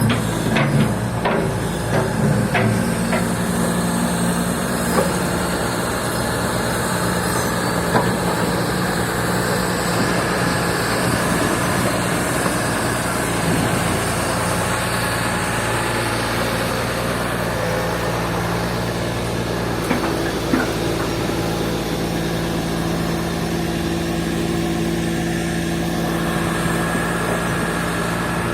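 Turbocharged Komatsu S6D105 six-cylinder diesel engine of a PC200-6 excavator running at a steady speed after an overhaul, with a few short clanks in the first few seconds and again about twenty seconds in.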